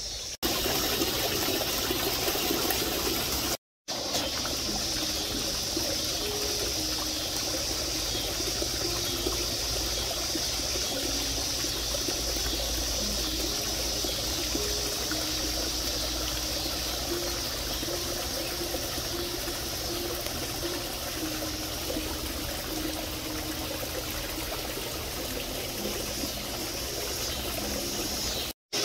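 Water trickling and splashing steadily into a small garden fish pond, cutting out for a moment twice.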